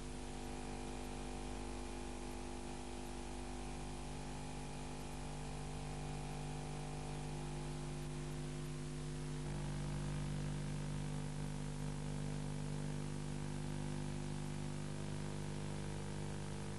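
Steady electrical hum with hiss on a blank stretch of an old video recording, its tone shifting slightly about halfway through.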